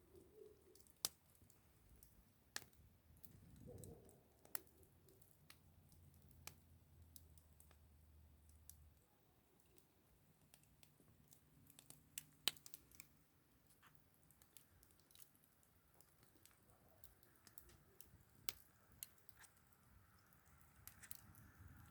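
Campfire burning, its wood crackling and popping at irregular moments, a few pops louder than the rest.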